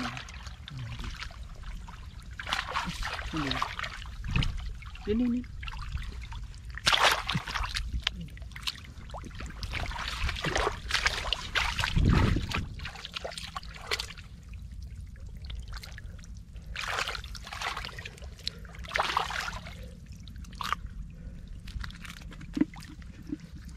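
Hands and bare feet sloshing in shallow muddy water, with uneven splashes and wet slaps as mud is scooped up and dumped on the bank.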